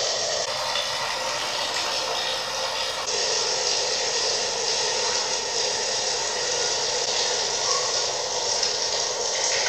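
Steady rush of running water, trickling and dripping without a break.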